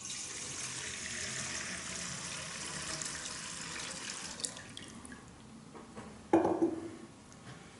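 Water poured from a glass pitcher into the metal bowl of a baptismal font: a steady splashing stream that tails off after about four and a half seconds. A short knock follows about six seconds in.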